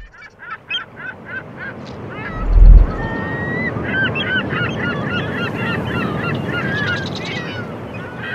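Many birds calling in quick short calls over a steady rush of surf, with a deep boom about two and a half seconds in. The calls come about four a second at first, then crowd together.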